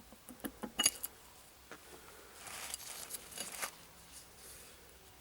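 Metal parts and tools clinking and tapping while a refrigeration compressor is dismantled: scattered light clicks, with a sharp ringing clink just under a second in.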